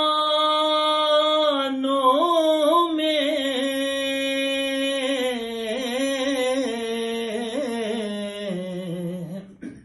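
A man singing a naat unaccompanied, drawing out one long held note with wavering ornaments. The note sinks lower near the end and breaks off just before the close.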